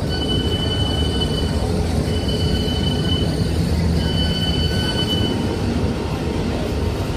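Train running with a steady low rumble, its wheels squealing on the rails in three long high-pitched squeals, each about a second and a half.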